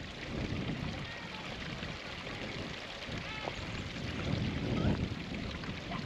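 Wind buffeting the microphone in irregular low rumbling gusts over a steady rushing hiss, with a faint short call about three seconds in.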